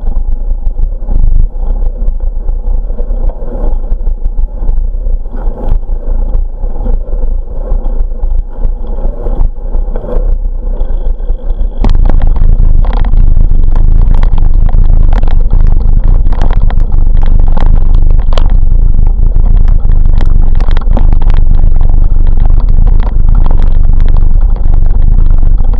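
A bicycle rolling along a cycle path, heard from a camera on the bike: at first a steady hum of tyres and wind with occasional knocks. About twelve seconds in it jumps to a loud, constant rumble full of rattling and knocking as the bike runs onto a rough gravel and concrete surface and shakes the camera.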